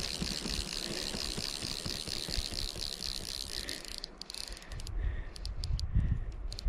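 Fly reel's click-and-pawl drag ratcheting in a rapid run of clicks as line goes onto or off the reel during the fight with a hooked trout, stopping about four seconds in.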